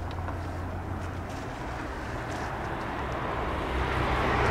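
Airliner engine noise, a steady rush that grows gradually louder as the aircraft approaches.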